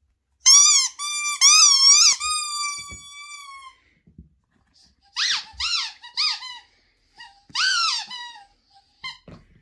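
A squeaky rubber ball squeezed repeatedly: a run of high squeaks, the last one drawn out and fading. Then, from about five seconds in, a rubber chicken toy squeezed several times, each squawk sliding down in pitch.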